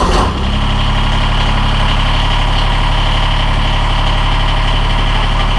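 Kubota BX23S tractor's three-cylinder diesel engine, just started, running steadily at idle, settling in within the first half second.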